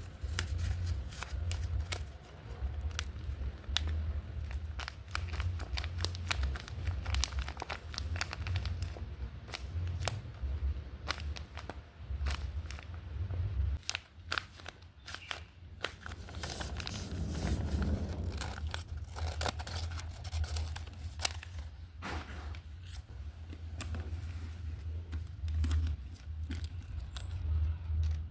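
Paper and tape being handled while crafting a squishy: irregular crinkling, crackling and tearing, with a low rumble underneath.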